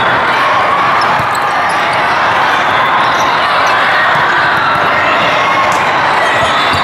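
Steady din of a large, echoing hall full of volleyball games: many voices of players and spectators blending together, with the occasional thud of volleyballs being hit and bouncing on the hard courts.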